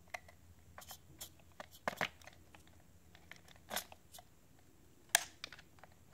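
Scattered light clicks and knocks of hands handling a ProMark VR drone's plastic body and its camera cable plug, with a sharper click about five seconds in.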